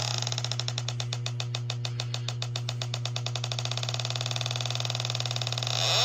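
H10 electronic refrigerant leak detector ticking rapidly and evenly, about ten ticks a second, over a steady low hum while it is probed along a leaking evaporator coil.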